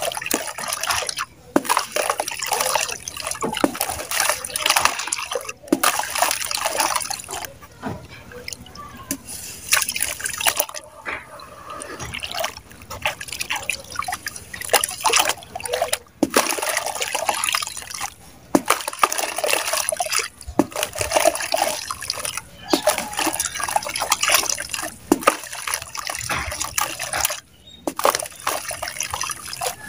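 Hands working wet mud in a plastic basin of muddy water: mud squelching and water sloshing, with crumbled mud chunks and clumps splashing, trickling and dripping back into the water. The sound is irregular and crackly, with short pauses every few seconds.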